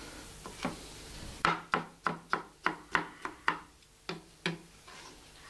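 Kitchen knife chopping pepper on a cutting board: about a dozen quick, sharp strokes at roughly four a second, starting about a second and a half in and stopping about a second before the end.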